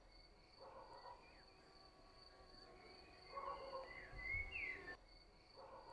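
Faint evening outdoor ambience: crickets trilling steadily at a high pitch. Near the middle there are a few faint chirps and a short, muffled patch of distant sound.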